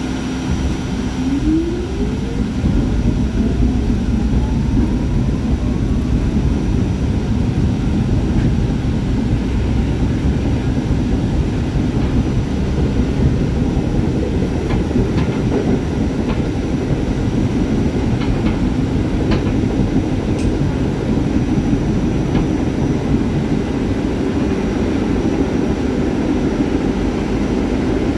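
R44 subway train pulling away: about a second in, the traction motor whine starts rising smoothly in pitch for about five seconds as the train gathers speed. After that comes steady wheel-on-rail running noise, with a few light clicks past the middle.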